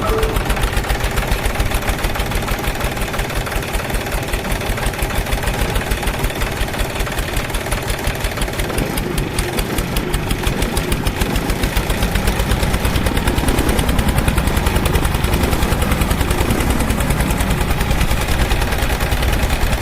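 Small engine of a mini DIY tractor running with a fast, even putter, pulling harder and louder from a little past halfway.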